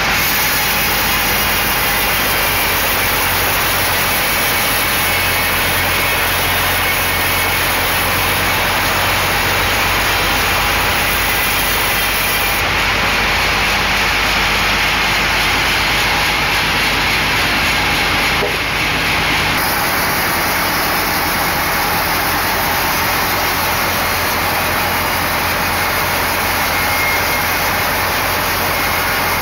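Large sawmill band saw running and cutting through a log: a loud, steady machine noise with a strong high hiss. The sound shifts abruptly about thirteen and twenty seconds in.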